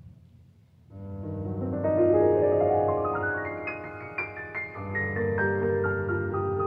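Piano playing starts about a second in with a rising run of notes, then carries on with a flowing line of notes.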